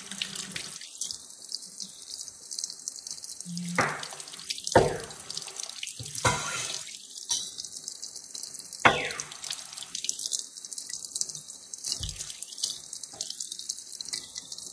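Kitchen tap running steadily into a ceramic sink, the stream splashing over hands rubbing the charred skins off roasted chilies and peppers, with several sudden louder splashes along the way.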